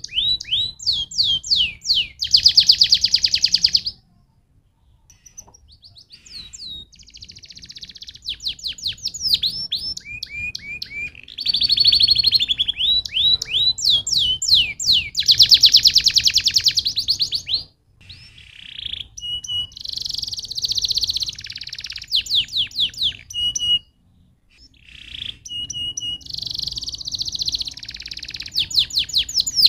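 Domestic canary singing a long, varied song of fast rolls and trills made of quick downward-sweeping notes, with a few short held whistles between phrases. The song breaks off briefly about four seconds in and twice more later.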